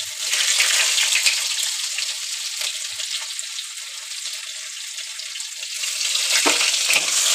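Chopped onions sizzling and crackling in hot mustard oil in a kadhai, the frying easing off in the middle and growing louder again near the end.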